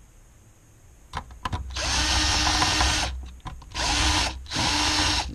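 Cordless drill-driver driving screws into a monitor's sheet-metal back cover: a few clicks, then the motor runs in three bursts, the first the longest.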